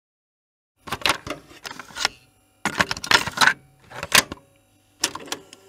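Four bursts of rapid clicking and clattering, starting about a second in.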